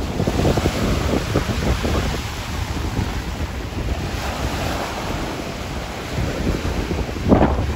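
Strong, gusty wind of a storm before rain, buffeting the microphone with a low rumble. A louder gust hits the microphone near the end.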